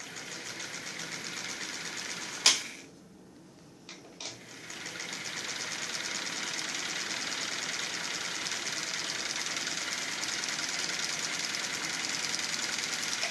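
Early electric Singer sewing machine running and stitching with a fine, even rhythm. It stops with a sharp click about two and a half seconds in, then starts again about two seconds later and runs steadily on.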